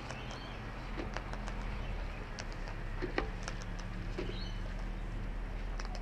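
Sulphur-crested cockatoo feeding on bird seed: irregular sharp clicks and taps as its beak cracks seeds and pecks at the plastic seed box and wooden board.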